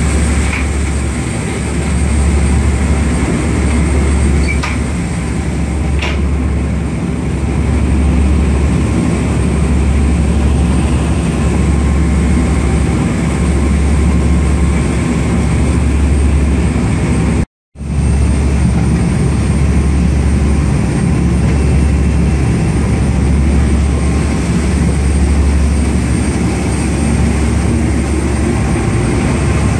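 Speed-boat ferry's engines running with a loud, steady low drone, over the rushing water of the wake. The sound cuts out for a split second a little past halfway.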